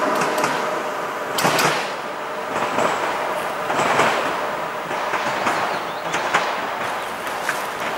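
Pesa Elf 2 electric multiple unit running away along the track, its rumble slowly fading, with a few sharp clacks of wheels over the rails.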